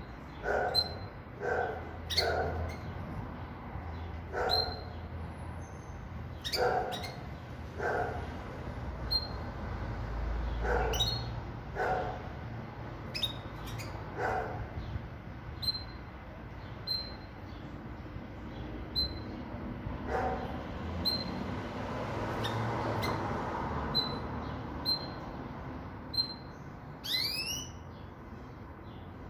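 Pintagol (goldfinch × canary hybrid) giving short, high chirps every second or so. In the first half a dog barks repeatedly, the loudest sound. A quick rising twitter comes near the end.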